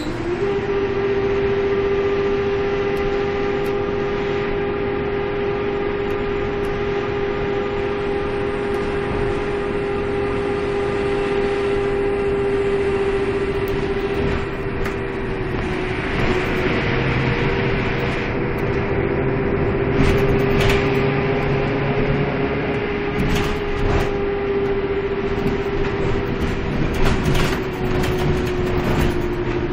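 Karosa B931 city bus under way, heard from inside: a strong steady whine from the running gear climbs in pitch at the very start, then holds one level pitch over the rolling road noise. From about two-thirds of the way in, short rattles and knocks of the bodywork come through.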